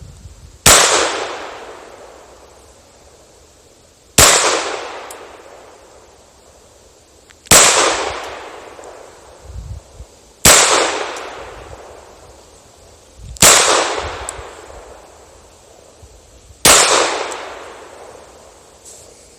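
Six single pistol shots from a Glock converted to fire .22 ammunition, fired slowly about three seconds apart. Each sharp crack is followed by a long echo dying away.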